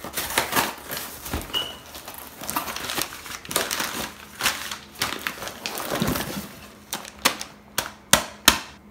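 Brown kraft packing paper crumpling and rustling as a cardboard shipping box is opened and rummaged through by hand, with irregular crackles throughout and a few sharp snaps near the end.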